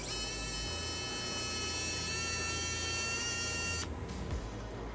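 Electric screwdriver motor whirring steadily for about four seconds as it backs out a screw, then stopping.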